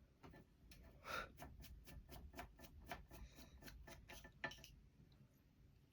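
A quick run of faint small clicks, about five a second, lasting some four seconds, as the soldered wire and its connector terminals are handled.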